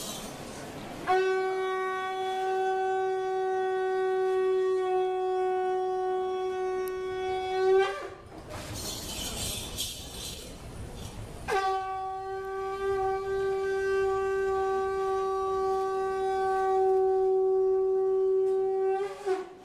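A horn blown in two long, steady blasts of about seven seconds each on one held note, each ending with a brief pitch wobble.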